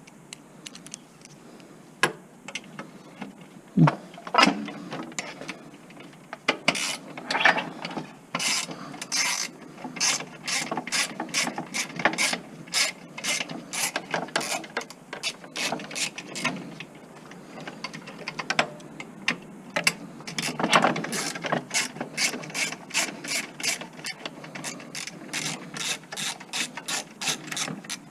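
Socket ratchet wrench clicking in a long run of quick back-and-forth strokes, after a couple of knocks, as it works a rusted nut loose on an old table saw.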